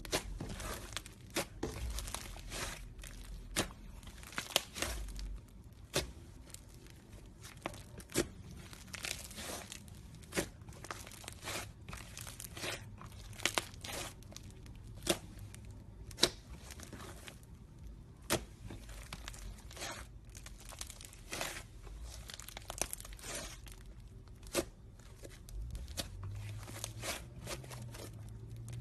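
Slime being handled and pulled apart, giving an irregular run of sharp clicks, crackles and tearing pops.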